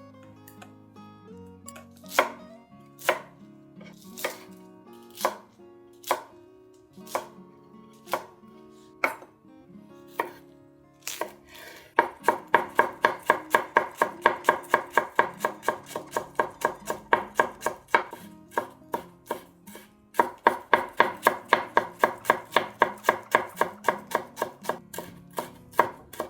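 Kitchen knife chopping on a cutting board: single cuts about a second apart at first, then fast, even chopping of about five strokes a second from about halfway through, with a brief pause.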